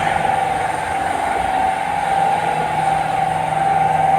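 A machine running with a steady high whine over a rough hiss, with no break or change in rhythm.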